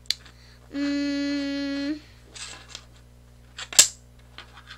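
A child hums one steady note for just over a second. Around it come a few light clicks of tangram pieces set down on a wooden table, the sharpest about four seconds in.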